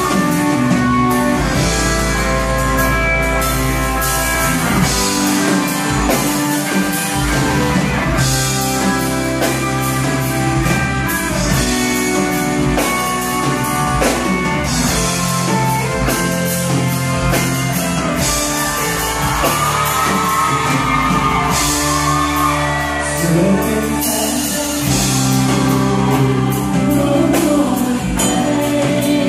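Live band playing a song through a PA in a large hall: a man singing lead into a microphone over keyboards, violins and a steady beat.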